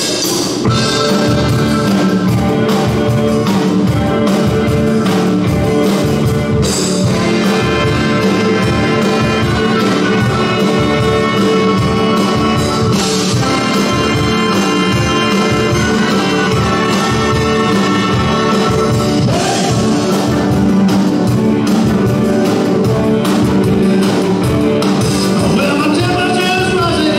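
A live rock-and-roll band playing a song, with sustained instrument notes over a steady drum beat.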